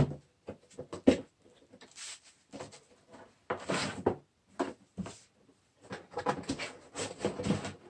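Cardboard box and bubble-wrap packaging being handled: flaps opened and plastic wrap crinkling and rustling in irregular spells, with two sharp knocks in the first second or so.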